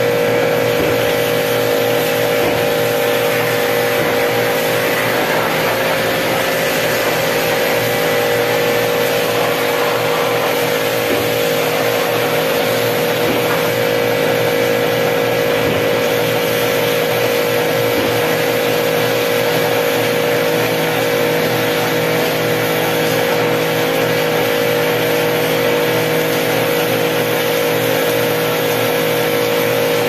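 Steady machine drone with a constant hum over a hiss, unchanging throughout.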